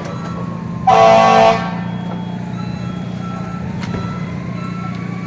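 Fire trucks at a fire scene: a steady low engine hum, with a vehicle backing-up alarm beeping repeatedly. A short, loud horn blast sounds about a second in.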